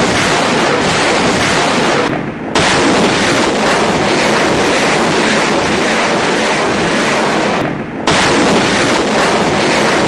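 BM-21 Grad multiple rocket launcher firing a salvo of 122 mm rockets: a loud, continuous rushing roar. It dips briefly about two seconds in and again near eight seconds, then comes back suddenly at full strength.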